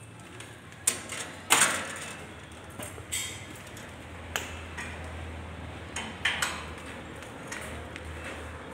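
Irregular sharp metallic clanks and knocks, about six of them, the loudest about one and a half seconds in, each ringing briefly, over a steady low hum.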